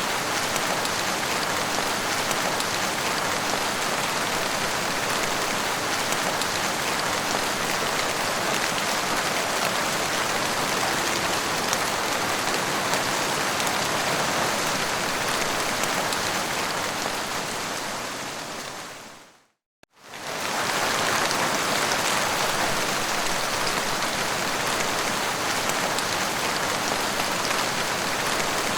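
Heavy rain falling steadily. About two-thirds of the way through it fades out to a moment of silence and quickly fades back in.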